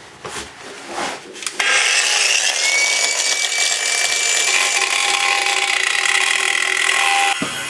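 Power saw cutting through a drain pipe, starting about a second and a half in, running steadily for about six seconds and stopping abruptly near the end. A few light knocks come before it.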